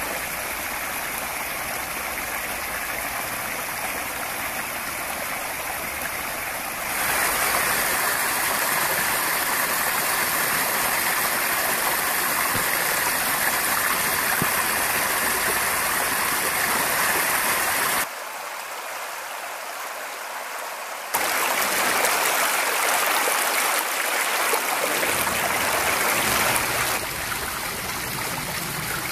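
Small rocky creek splashing over cobbles and tiny cascades: a steady rush of water. It grows abruptly louder about a quarter of the way in, drops back for a few seconds past the middle, swells again, and eases near the end.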